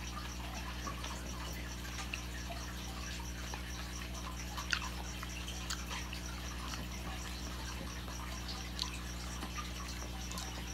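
Quiet, wet chewing of instant noodles and a metal fork stirring in the noodle cup, with a few light clicks, the sharpest about halfway through, over a steady low hum.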